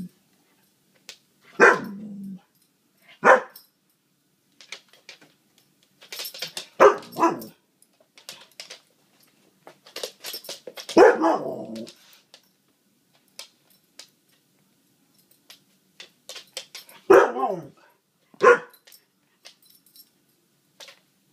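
Husky barking at an unfamiliar ball toy: about seven loud barks in irregular bouts, one near the middle drawn out longer, with light clicks in between.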